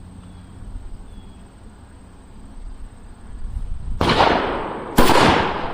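.308 rifle firing two shots about a second apart near the end, each sharp crack trailing off in a long echo; before them only a low outdoor background.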